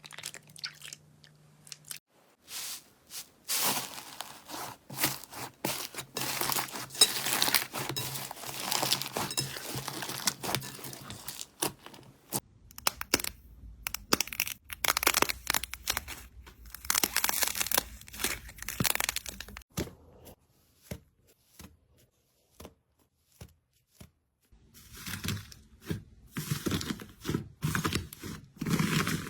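Slime being squeezed and worked, making dense runs of crackling clicks and crunches, with a near-silent pause about twenty seconds in before a fuller, lower crackling sound takes over.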